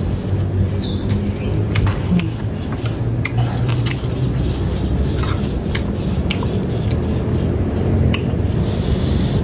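Close-up eating sounds: chewing with wet mouth noises, and a metal spoon clicking and scraping against a ceramic plate in scattered short clicks, over a steady low hum.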